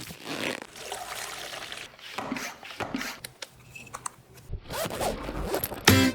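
A run of short rasping scrapes and handling clicks, irregular, like something being rubbed or dragged repeatedly.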